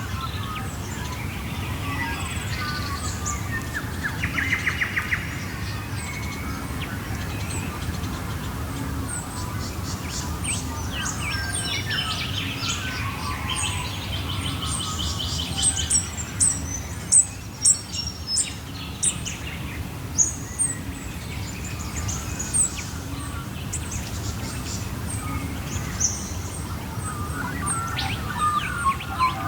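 Pre-dawn chorus of many Australian birds singing at once: a mix of chirps, rapid trills and sharp high chips, over a steady low background rumble.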